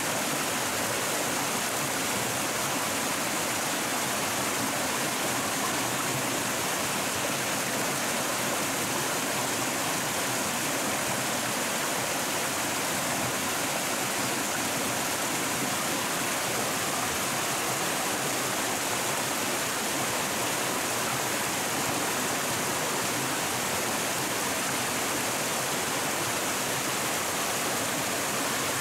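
Steady rush of running water, such as a stream flowing over rocks, even and unbroken throughout.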